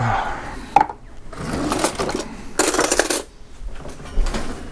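Metal kitchen utensils clinking and rattling as they are handled, with a few sharp clinks among the noisy bursts.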